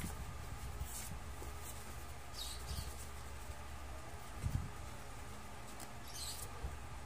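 Paper and thin card rustling as an iPad's documentation sleeve and leaflets are handled, in a few short, faint brushes, with a dull bump about four and a half seconds in.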